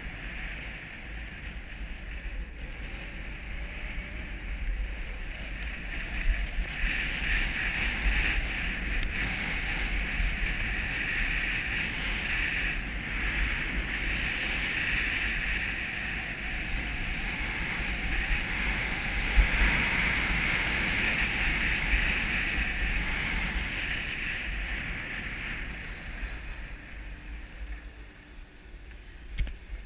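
Skis sliding over snow, with wind buffeting the camera's microphone: a steady hiss over a low rumble that swells in the middle and dies down near the end as the skier slows.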